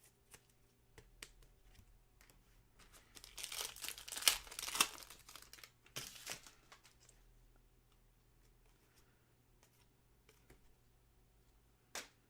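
A trading card pack's wrapper torn open and crinkled, loudest in a burst about three to five seconds in with a shorter one near six seconds, followed by light clicks and taps of cards being handled.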